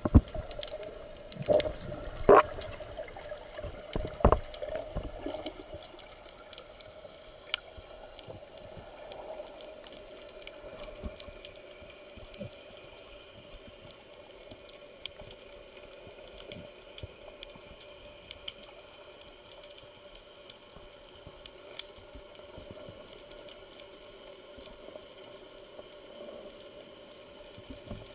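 Underwater ambience on a spearfishing dive: scattered sharp clicks and crackles over a faint steady hum, with several louder knocks and water sounds in the first five seconds.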